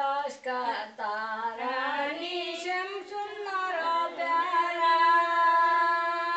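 A group of women singing a Nepali Sangini folk song in unison without accompaniment. The line moves at first, then settles on a long held note over the second half.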